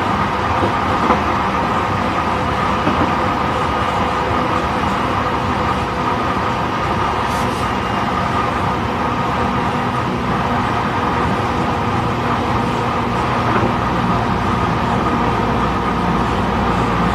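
Running noise of a JR East E531 series electric train heard inside the motor car (MoHa E530): a steady rumble of wheels on rail with a constant hum, at a steady speed.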